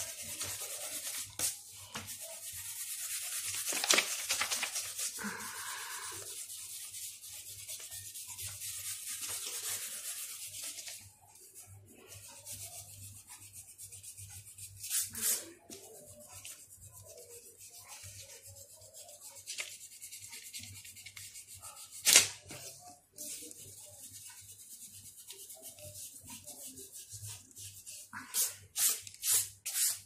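Eraser rubbing pencil lines off paper: a steady scrubbing for about the first ten seconds, then quieter short rubs and light taps, one sharp tap in the second half, and a run of quick strokes, about three a second, near the end.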